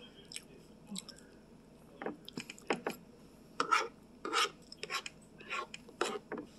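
Close-up eating sounds: chewing and mouth clicks over a mouthful of chicken fried rice, with small scrapes of a spoon against the plate. These come as irregular short clicks and scrapes, starting about two seconds in.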